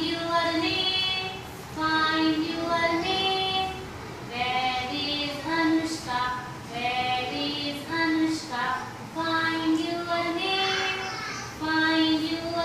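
A group of young children singing a simple classroom attendance song together, with a woman's voice among them, in short repeating phrases of about two seconds each.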